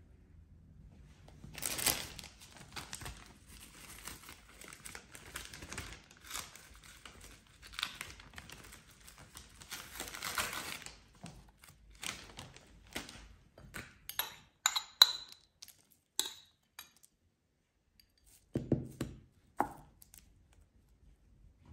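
Plastic cling film crinkling and rustling for about ten seconds as a sheet is handled and smoothed over a tray. Then comes a run of light clicks and taps, and near the end a few soft knocks as a spoon spreads cooked rice.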